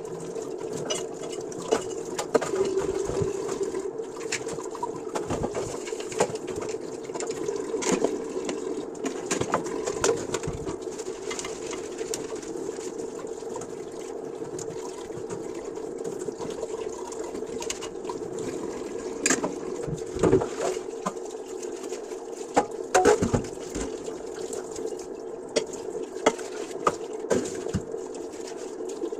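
Dishes being washed by hand: scattered clinks and knocks of dishes and pans, clustered around the start and near the end, over a steady background noise.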